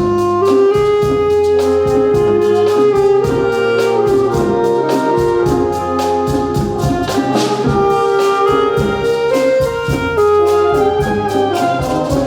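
Brass-led band music, with sustained trumpet and trombone notes over a steady percussion beat.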